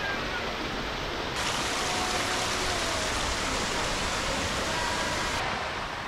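Small waterfall and its stream splashing and rushing steadily over rocks. The rush turns brighter and hissier about a second and a half in, then duller again near the end.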